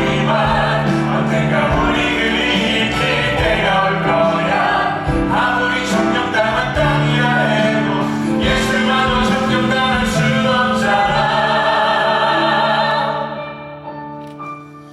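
Musical theatre cast singing an encore number together over band accompaniment, several voices at once; the music fades out over the last couple of seconds.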